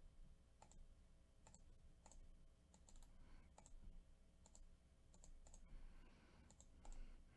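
Faint, irregular clicks of a computer mouse and keyboard, about one or two a second.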